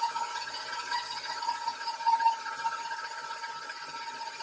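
KitchenAid stand mixer running at a steady speed, its beater mixing butter and cream cheese in a stainless steel bowl, with a steady motor whine.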